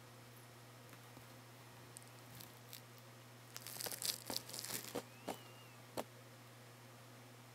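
Dry crackling and rustling of loose hay as a baby capybara and a guinea pig shuffle over it, in a dense cluster lasting about a second and a half in the middle. It is followed by a faint short squeak and a single sharp click.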